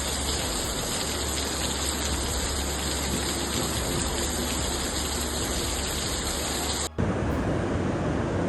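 Steady rushing hiss of heavy water, rain or floodwater, with a low hum underneath. About seven seconds in it cuts abruptly to a different, rougher rushing sound with more low rumble.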